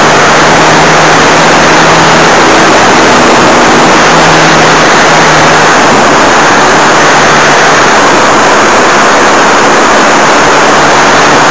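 Model airplane's motor and propeller running steadily, heard from a camera on board the plane, under a loud constant rush of wind, with a faint hum that comes and goes.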